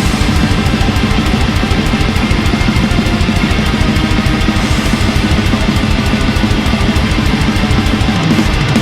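Atmospheric black metal: distorted guitars over fast, dense drumming, loud and unbroken.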